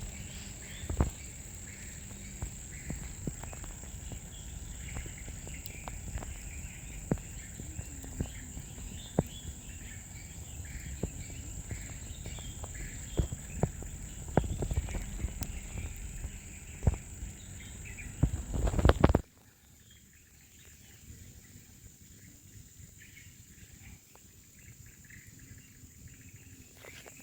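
Repeated sharp clicks and knocks of grilled clam shells being handled and cracked open for eating, over a low rumble and a steady high-pitched tone. About nineteen seconds in the clicking and rumble drop away abruptly, leaving a much quieter stretch with only faint clicks and the high tone.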